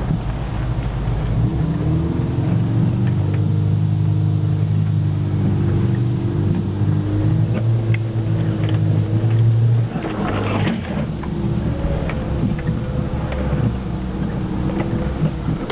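Off-road vehicle's engine running hard under load, holding a steady pitch, then dropping off suddenly about ten seconds in with a short burst of rushing noise, after which it runs on unevenly.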